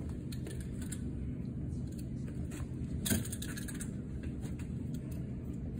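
Hands working at the oil filter under a car raised on a lift, giving a few light clicks and one sharper knock about three seconds in, over a steady low hum.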